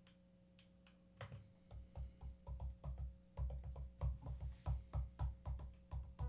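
Synth bass from the Akai Force's Hype plugin on a string-bass preset, played on the pads as a quick run of short, low notes starting about a second in, over a faint steady hum.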